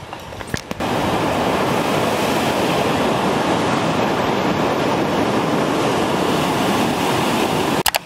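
Steady rush of ocean surf, starting abruptly about a second in and cutting off just before the end.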